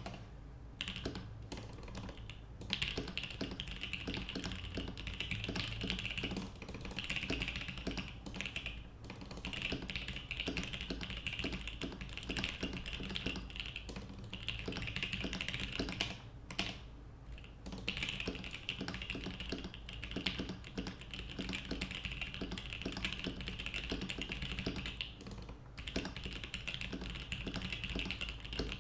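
Typing on a Practice 65 V2 mechanical keyboard with Lilac switches lubed with Tribosys 3203 and filmed, keystrokes coming fast and continuous with a few brief pauses.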